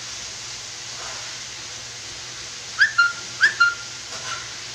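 Two quick pairs of short whistled notes about three seconds in, each pair a rising chirp followed by a briefly held note, then one faint note. Under them runs a steady hiss.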